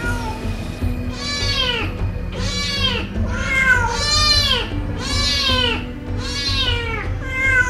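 Mother cat meowing over a drain grate, a string of about seven loud calls, roughly one a second, each rising then falling in pitch: she is calling to her kitten trapped in the drain below.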